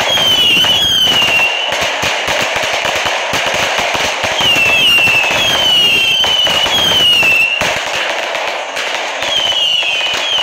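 A row of many consumer fireworks cakes firing at once: a dense, rapid, continuous crackle of bangs, with whistles falling in pitch several times over it.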